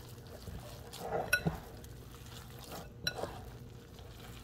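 Hand kneading and squeezing wet vital wheat gluten dough in a ceramic bowl: soft, faint squishing, with a few light clicks about a second in and again about three seconds in.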